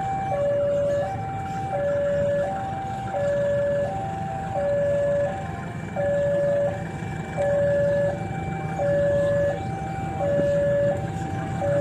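Level crossing warning bell sounding a steady two-tone alternation, a higher and a lower tone each about 0.7 s long, over a low rumble. It warns that a train is approaching the crossing.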